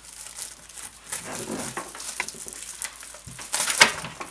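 Cardboard box and plastic wrapping rustling and crinkling as a wrapped stack of wooden Jenga blocks is slid out of the box, with a louder crackle near the end.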